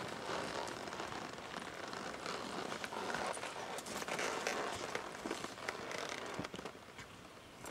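Horse cantering on arena sand, its hoofbeats coming as soft scattered thuds amid a steady crackling hiss.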